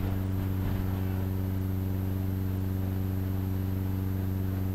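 Steady low hum made of several even tones, with a faint high-pitched whine above it, unchanging throughout.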